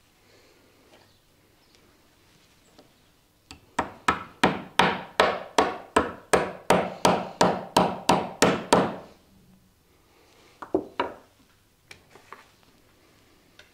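A small hammer tapping on the metal parts of a tractor brake master cylinder during reassembly: about sixteen quick, ringing taps at about three a second. A couple of lighter knocks follow near the end.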